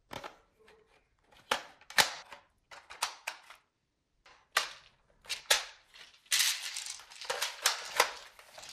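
Plastic toy AK-47 blaster being handled: a string of sharp plastic clicks and knocks, then a denser stretch of clicking and rustling about six seconds in.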